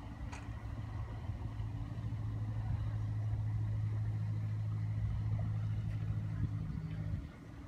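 An engine running steadily in the distance, a low even hum that cuts off suddenly near the end.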